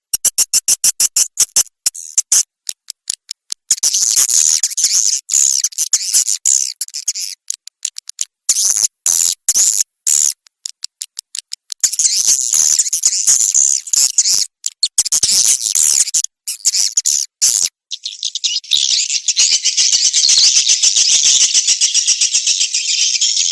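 Swiftlet lure call track of edible-nest swiftlet chirps: rapid high-pitched clicks and twitters in fast stuttering runs with short gaps, turning about 18 seconds in into a dense, continuous high chirping chorus.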